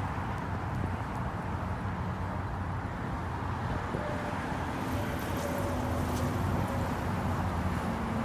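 Steady low rumble of road traffic and a vehicle. Faint thin tones come in about halfway through as the sound swells slightly.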